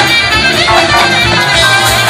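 Live jazz-rock band playing an instrumental through a stage PA: held lead lines over guitar, bass and a steady drum beat.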